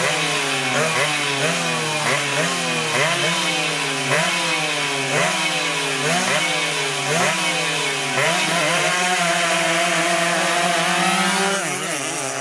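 A racing engine revved over and over, about two quick blips a second, each rising sharply in pitch and falling back. For the last few seconds it holds at a steady speed.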